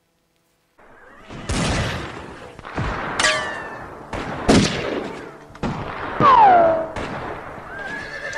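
Western-style gunshot sound effects: after about a second and a half of silence, several shots roughly a second apart, each with an echoing tail, two of them trailed by a falling whine like a ricochet.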